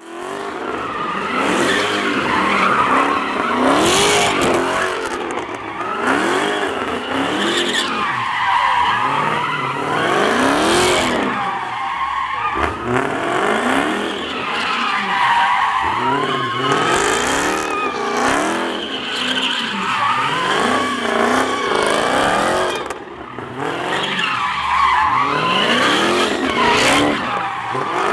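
Dodge Charger Hellcat's supercharged V8 revving up and down again and again while its rear tyres spin and squeal through donuts. The engine pitch surges and drops every second or so, with only a short dip in level about three quarters of the way through.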